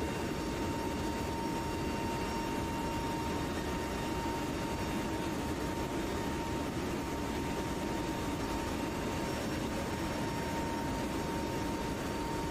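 Inside the cargo hold of a C-130 Hercules flying with its rear ramp open: a steady rush of turboprop engine and wind noise, with a thin steady high tone running through it.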